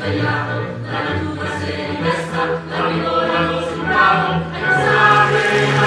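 Ensemble chorus of a stage musical singing together over instrumental backing, with steady low held notes under the voices.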